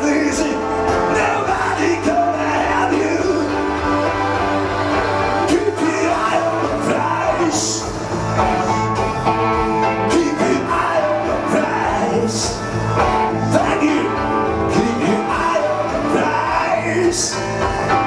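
A man singing live over a loud karaoke backing track.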